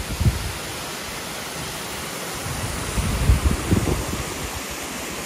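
Hot spring water cascading down a rock slope: a steady rushing hiss, with a few low rumbles near the start and again about three to four seconds in.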